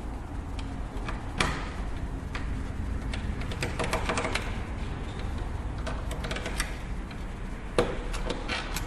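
Irregular small clicks and taps of a Phillips screwdriver and screws being worked out of a PlayStation 3's casing, with a sharper knock about one and a half seconds in and another near the end.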